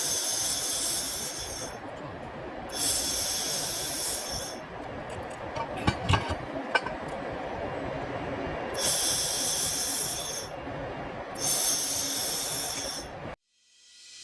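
Handheld fiber laser welder on stainless steel firing in four hissing bursts of about two seconds each, over a steady background machine noise. A few sharp clicks come about six seconds in.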